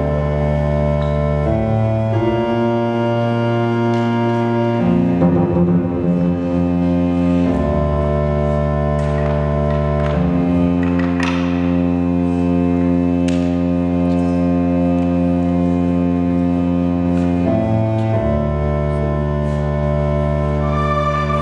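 Live electronic keyboard music: sustained, organ-like chords held for several seconds each before moving to the next.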